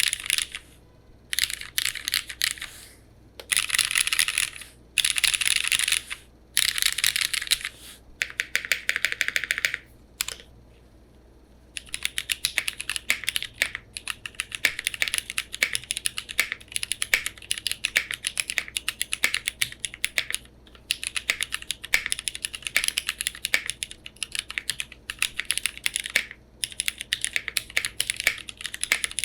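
Mechanical keyboard with modded Cherry Retool Brown tactile switches on an aluminum plate with no foam, being typed on. It starts with several short spells of very fast, dense key presses. After a brief pause it settles into steady, continuous typing.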